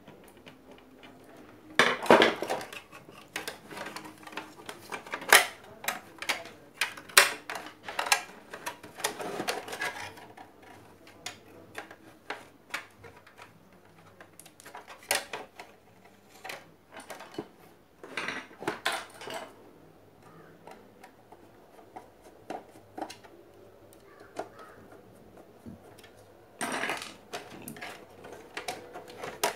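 Hard plastic and metal blender parts and tools being handled, clicking and clattering against one another and the work surface. The knocks come irregularly, thickest in the first ten seconds and sparser after.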